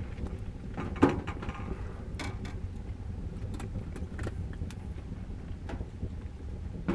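Cookware on a lit Kni-co Alaskan woodstove over a low steady rumble: a loud metallic clank about a second in, then a few light ticks, and near the end a clink as a pot with a wire bail handle is set on the stove top.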